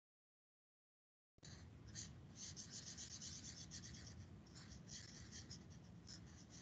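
A felt-tip highlighter marker rubbing quickly back and forth on paper, shading in a region. The faint scratchy strokes start about a second and a half in, after dead silence.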